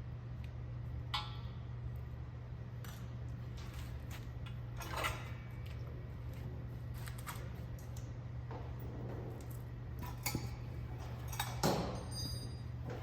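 Loose metal engine parts clinking and knocking now and then as they are handled on a bench, with a short metallic ring near the end. A steady low hum runs underneath.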